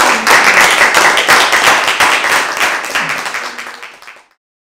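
Audience applauding, many hands clapping at once, fading and cutting off about four seconds in.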